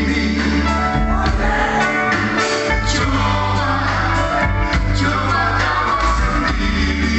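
Live band playing a song, a singer's voice with held, wavering notes over a steady bass line and band accompaniment.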